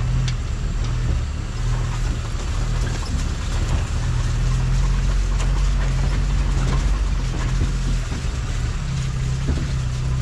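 Wind rumbling on the microphone over a steady rush of surf.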